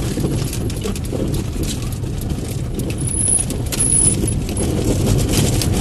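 Steady low rumble of motor-vehicle noise, with a few faint clicks and brief high thin whistles about three seconds in.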